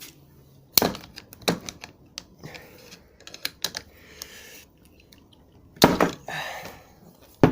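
Metal tools clicking and knocking on a steering rack as its threaded end plug is worked loose with a homemade welded key and a screwdriver: a string of sharp irregular clicks, with a louder clank about six seconds in and another near the end.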